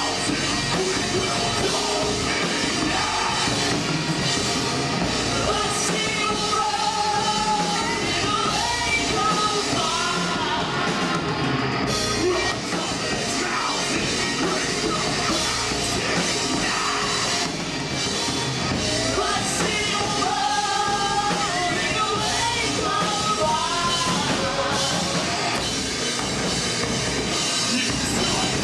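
A metal band playing live: a vocalist singing over electric guitars, bass guitar and a drum kit.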